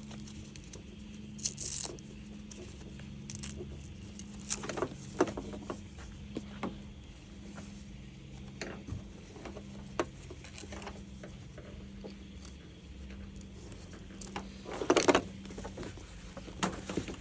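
Nylon chest rig and harness being handled and its straps adjusted: rustling webbing with scattered light clicks of plastic buckles and hardware, and a louder rustle about fifteen seconds in, over a faint steady hum.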